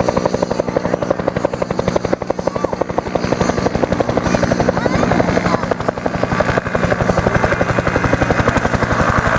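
Helicopter running, its rotor giving a fast, even chop over a steady engine tone, gradually growing louder.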